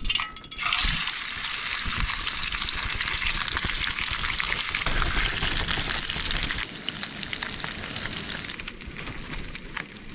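Fish sizzling and crackling in a hot pan of oil, starting about a second in and easing off slightly about two-thirds of the way through.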